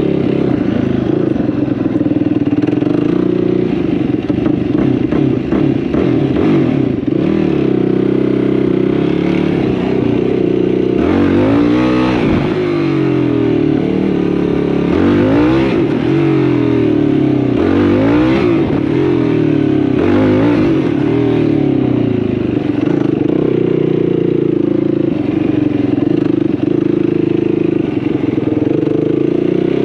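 Yamaha YFZ450R sport quad's single-cylinder four-stroke engine running under way, revving up and dropping back again and again as the throttle opens and closes and it shifts gears, with the pitch swings busiest in the middle.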